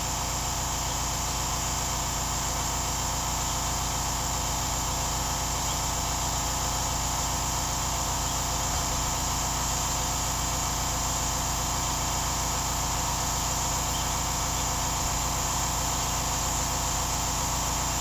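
A steady mechanical hum with a constant hiss, unchanging throughout, like a machine running at idle.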